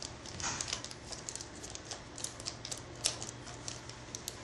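Irregular light clicks and taps of a magnetic hinge-masking cover being handled and pressed onto a metal door hinge, the sharpest click about three seconds in, over a low steady hum.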